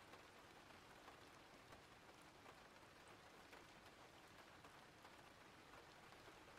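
Faint, steady rain: an even hiss of rainfall with scattered small drop ticks.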